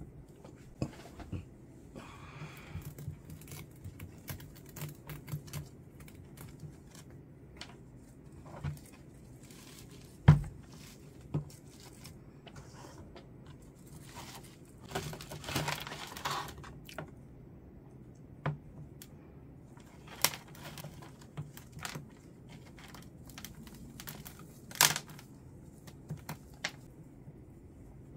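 Hands working with houseplants, pots and potting mix: scattered clicks, taps and rustling. There is a sharp knock about ten seconds in and a longer stretch of rustling about halfway through.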